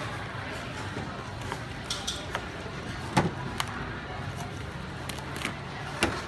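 A cleaver cutting a tomato on a thick wooden chopping board, its blade knocking sharply on the board a few times, loudest about three seconds in and again just before the end, over a steady low background hum.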